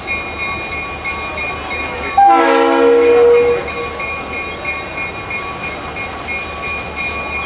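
Diesel locomotive horn sounding one blast of about a second and a half, a chord of several notes, starting about two seconds in. Under it the locomotive's diesel engine runs with a low steady rumble as it moves slowly through the yard.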